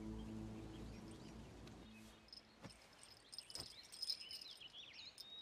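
A held music chord fading out, then birds chirping with insects in the background, several short rising-and-falling chirps in the second half.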